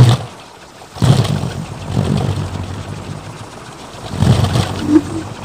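A four-metre kolecer, a Sundanese wooden wind propeller on a tall pole, spinning in the wind with a deep, engine-like drone that is meant to sound like thunder. The drone swells in gusts, about a second in and again around four seconds in.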